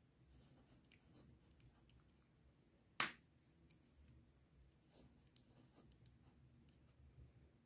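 Faint scratching and tapping of a ballpoint pen writing numbers on paper, with one sharp click about three seconds in.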